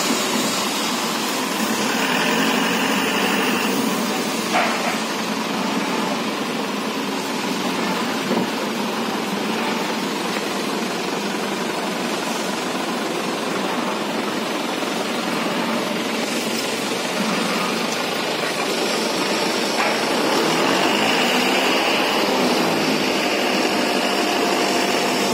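Crane truck's engine running steadily, driving its hydraulic crane, with a few short sharp knocks.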